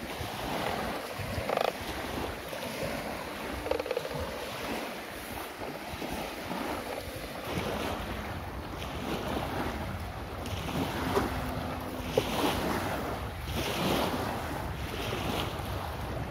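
Small lake waves washing onto a sandy shore, with wind buffeting the microphone, and a few short knocks.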